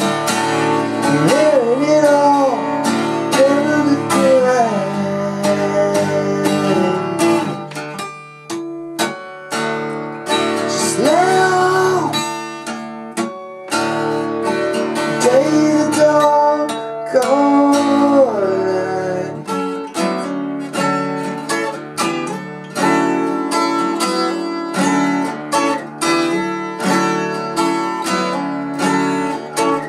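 Twelve-string acoustic guitar strummed steadily, with a wordless sung melody over it in stretches through the first two-thirds.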